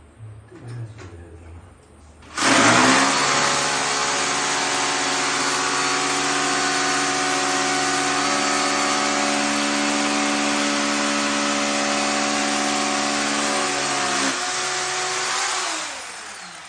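An electric power tool's motor starts about two seconds in and spins up quickly, then runs steadily with a whining hum. Its pitch drops slightly near the end before it winds down.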